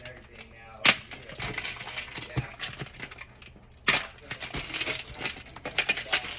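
Packing tape being torn and peeled off a cardboard box: crackling, ripping and rustling, with two sharp loud snaps about a second in and near four seconds.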